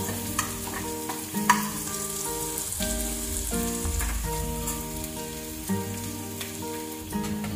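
Chopped onion and curry leaves frying in hot oil in a kadhai, sizzling steadily. A couple of sharp clicks in the first second and a half as a metal slotted spoon stirs against the pan.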